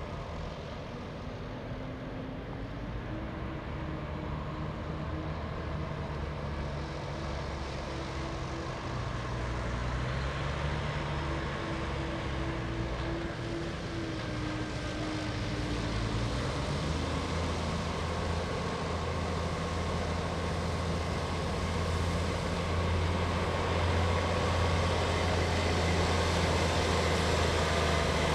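Jet engines of an Airbus A320 heard from a distance: a steady low hum and hiss that grows gradually louder. A humming tone shifts in pitch and drops away about two-thirds of the way in.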